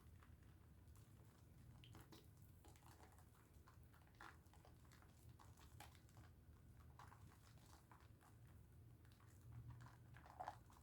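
Faint, irregular wet squishing and crackling of Dove soap being lathered, a little louder near the end, over a low steady hum.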